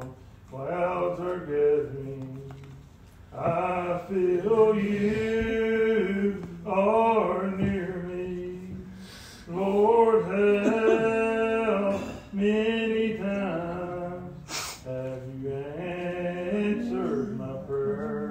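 Unaccompanied male voice singing a slow hymn in long, drawn-out notes that slide between pitches, in the Old Regular Baptist a cappella style. A brief sharp click sounds about fifteen seconds in.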